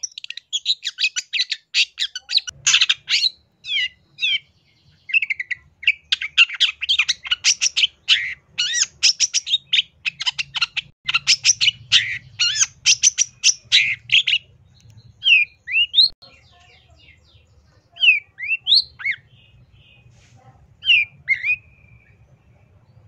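A long-tailed shrike (cendet) singing a fast chattering song of rapid harsh notes for the first fourteen seconds or so, then slowing to separate slurred single notes. It is the full, varied song prized as 'gacor full isian', packed with imitated phrases.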